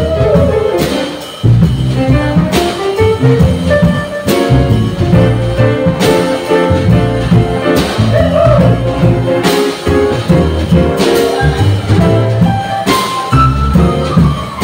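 Live jazz combo of piano, upright double bass and drum kit playing, with cymbal accents every couple of seconds.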